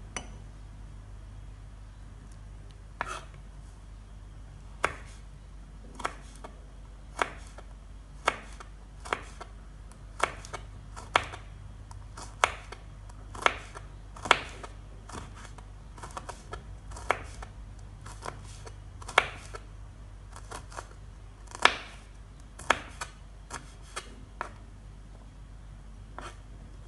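Knife slicing red chillies on a wooden cutting board: separate sharp taps of the blade against the board, irregular and roughly one a second.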